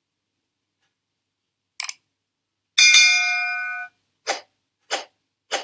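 Subscribe-button animation sound effects: a short click, then a bell chime that rings for about a second and fades, then three short clicks about two-thirds of a second apart.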